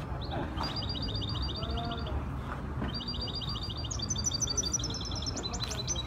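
Caged songbird singing fast trills of repeated identical high notes, about ten a second. A run of about a second and a half is followed, after a short pause, by a longer run that moves up to higher notes.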